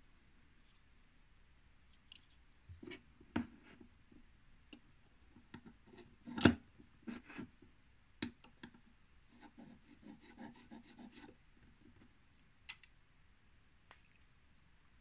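Handling noise of a digital caliper and a small brass bar: scattered clicks and scrapes as the caliper's jaw slides and closes, with one sharp knock about halfway through and a run of quick small ticks a little later.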